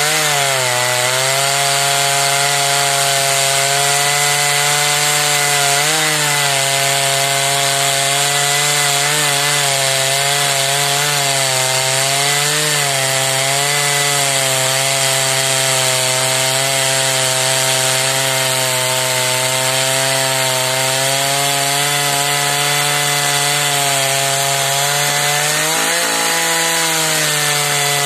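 Husqvarna 480 CD two-stroke chainsaw running under load as its bar cuts deep into a large hard beech log. The engine pitch sags about half a second in as the saw bites into the wood, then holds steady with a few small dips.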